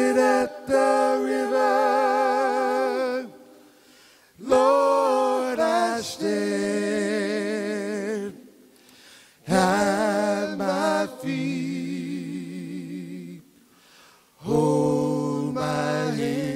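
Male vocal group singing a cappella in harmony: four long, held phrases with vibrato, each a few seconds long, with short breaks between them.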